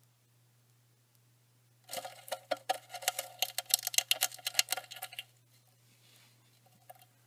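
Rapid clicking and rattling for about three seconds, starting about two seconds in. An Avicularia versicolor tarantula is seizing a roach held in metal feeding tongs at the lip of its plastic enclosure.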